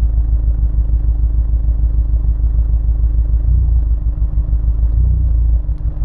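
Honda S2000's four-cylinder engine running with a misfire, a low, uneven pulsing exhaust note.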